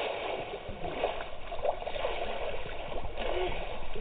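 Swimming-pool water splashing and churning around a person plunging under, a steady rushing wash with no sharp impacts.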